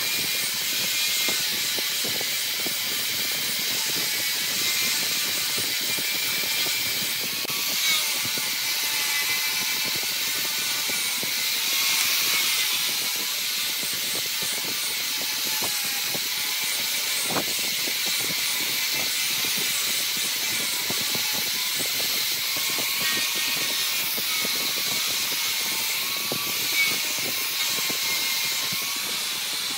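Wood lathe spinning a workpiece while a turning tool cuts it: a steady high hiss of shavings coming off, with fast fine ticking throughout.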